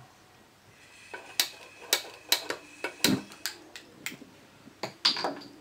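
Gas burner's spark igniter clicking repeatedly as the stove is relit: about a dozen sharp, separate clicks at roughly two a second, starting about a second and a half in.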